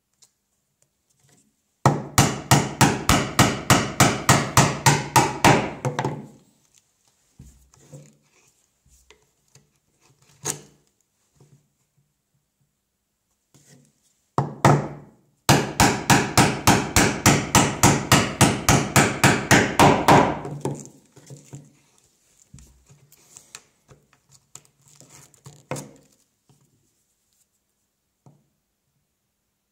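Mallet driving a mortise chisel into white oak to chop a 3/4-inch mortice: two runs of quick, even blows, about five a second for some four to five seconds each, with a single blow between them. Quieter knocks and scrapes of the chisel in the mortice come in the pauses.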